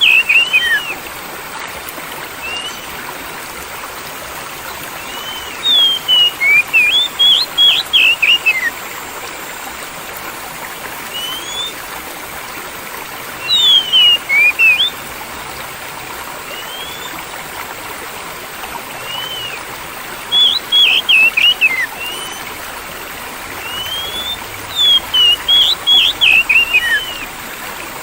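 A songbird sings bursts of clear, sweeping whistled phrases every few seconds over a steady background of running water, like a stream or trickle. Five song bursts stand out, with a few single notes between them.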